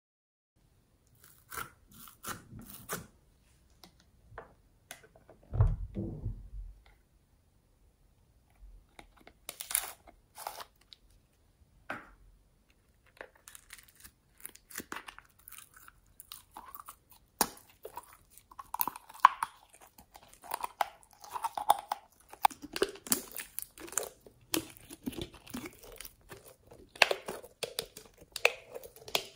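Glossy slime being pulled and squeezed out of a clear plastic container by hand, making sticky crackles and squelchy pops, sparse at first and dense from about halfway. There is a low thump about six seconds in.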